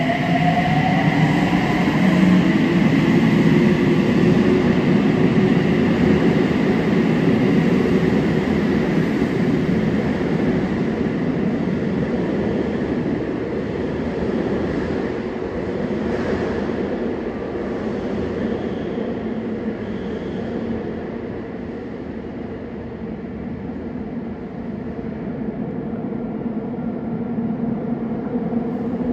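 Subway train pulling out of an underground station, its traction motor whine rising in pitch as it accelerates. The running rumble then slowly fades as it moves away, picking up again slightly near the end.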